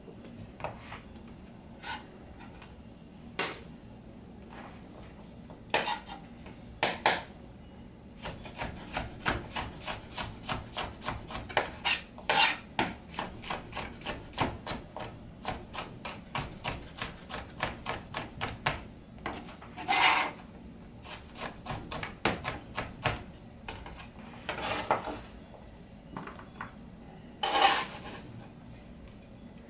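Chef's knife slicing a bell pepper into thin strips on a plastic cutting board. It starts with scattered taps, then a quick steady run of about four knife strikes a second for some ten seconds. A few longer scraping sounds come in between.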